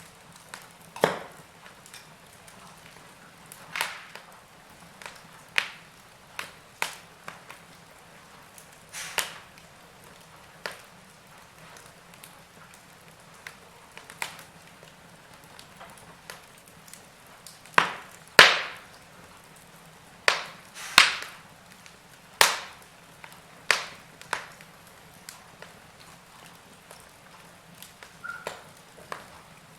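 Wood fire crackling in a fireplace: sharp, irregular pops and snaps a second or two apart over a faint steady hiss, with the loudest snaps coming in a cluster a little past the middle.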